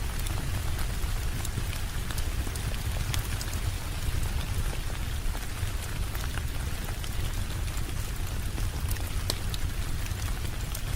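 Steady rain mixed with a crackling fireplace: an even hiss over a low rumble, with scattered sharp crackles.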